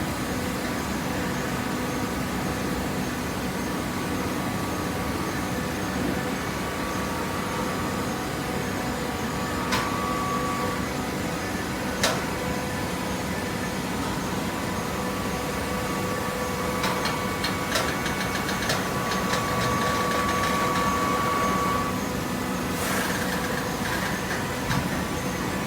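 Waste paper box baler with its conveyor running: a steady machine hum, with two sharp knocks about halfway in, then a stretch of rattling and a higher steady whine past the middle.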